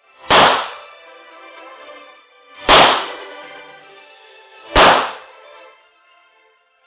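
Three pistol shots from a semi-automatic handgun, fired one at a time about two seconds apart, each a sharp loud crack with a short ringing tail.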